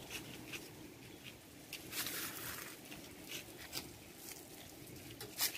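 Faint rustling with scattered light clicks and crackles, and a louder rustle about two seconds in.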